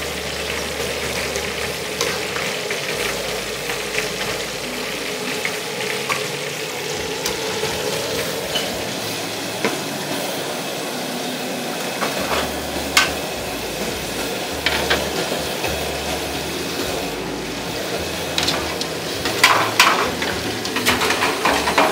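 Food sizzling as it fries in a pan, with the occasional click and scrape of a utensil stirring it. Sharper knocks come more often near the end.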